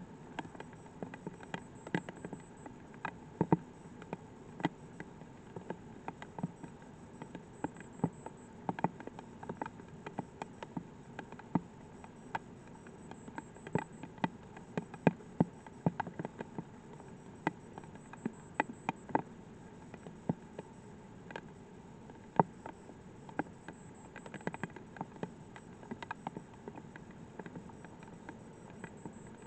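Light rain: single raindrops striking close to the microphone as irregular sharp ticks, a few a second, over a steady low hiss.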